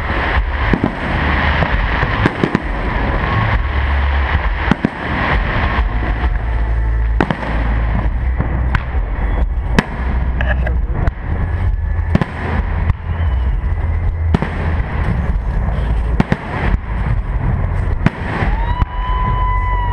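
New Year fireworks going off: many bangs and crackling pops in quick succession over a continuous low rumble.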